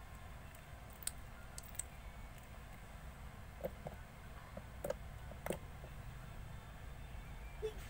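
Slime being squeezed and poked by hand, giving faint, scattered small clicks and pops at irregular moments, a few of them sharper, about five seconds in.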